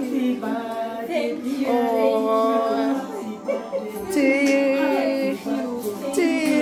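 Music with women's singing voices: a melody of held notes with vibrato.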